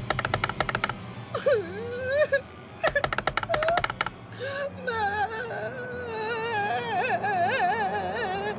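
Anime character's wailing, pitch-wavering cry, broken near the start by two runs of rapid clattering clicks and short gliding whimpers, then settling from about halfway into a long, wobbling, sustained wail.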